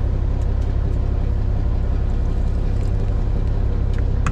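Steady low drone of an engine running on board a fishing boat, unchanging throughout, with a couple of faint clicks near the end.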